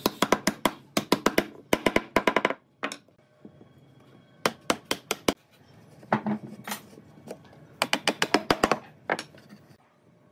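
Wooden mallet knocking pine slats and rails together: quick runs of sharp wooden knocks, about five a second, broken by short pauses.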